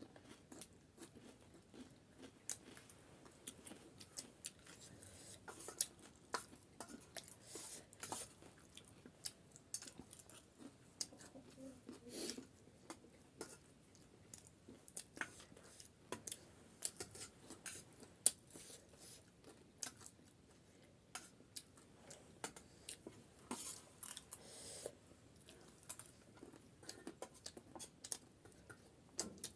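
Close-up chewing and crunching of chatpate, a crunchy Nepali puffed-rice snack, as a run of many short, irregular crackles and clicks.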